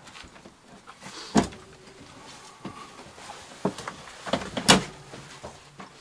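Wooden knocks and clunks of a compressor fridge and its cabinet being handled while it is fitted into place: one hard knock about a second and a half in, then a cluster of knocks near the end, the last the loudest.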